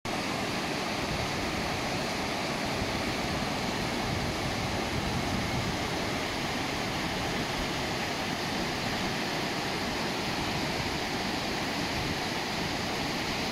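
Mountain river rushing over boulders in white-water rapids: a steady, unbroken rush of water.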